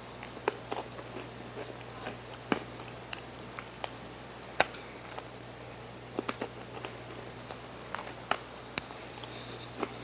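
Irregular sharp crunches of a hard, dry rye cracker being bitten and chewed, over a low steady hum.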